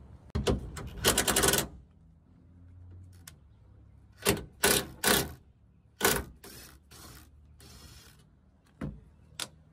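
Cordless impact driver hammering in a series of short bursts on the tail light mounting bolts. The longest and loudest burst comes about a second in, then several shorter ones follow.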